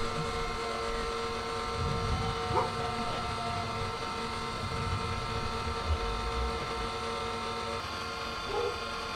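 Steady mechanical hum of a running machine, with a constant whine over a low rumble and a few light knocks.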